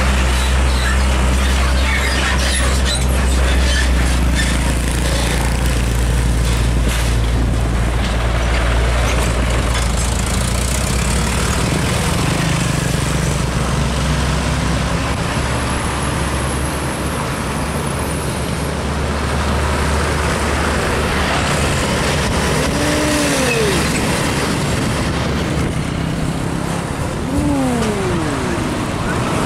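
Heavy trucks' diesel engines running close by as they pass on the road, with a deep steady engine drone for the first twelve seconds or so that then eases off. Near the end a few short tones slide up and down in pitch.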